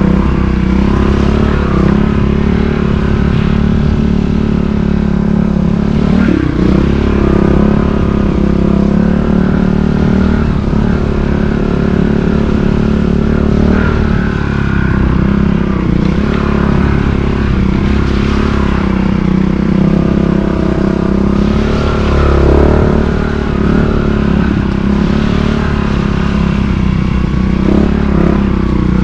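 Montesa Cota 4RT trials motorcycle's four-stroke single-cylinder engine running as it is ridden, mostly steady with small shifts in pitch and a couple of brief throttle blips.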